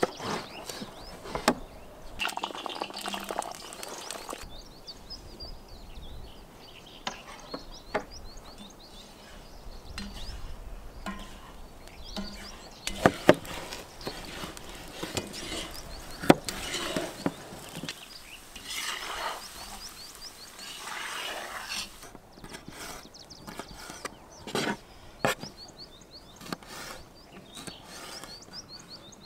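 Kitchen knife slicing a bell pepper on a wooden cutting board: irregular sharp knocks of the blade on the board, with crisp cutting and rustling between them. Birds chirp in the background.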